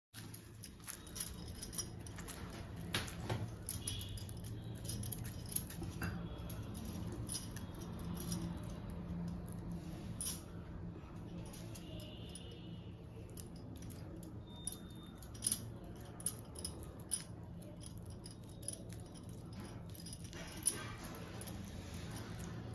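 Wet hands pressing and pinching soft rice-flour dough closed around a coconut-jaggery filling, making scattered small clicks and sticky taps. A steady low hum runs underneath.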